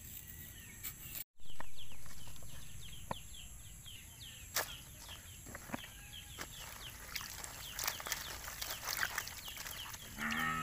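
Rural outdoor ambience: birds chirping in quick repeated downward notes over a steady high insect drone, with scattered sharp clicks and rustles, and a short pitched call near the end.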